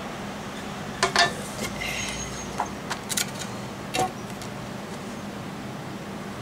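Several short, sharp clicks and taps from black plates and paper prints being handled and set down on a mesh-covered table, clustered in the first four seconds, over a steady low hum.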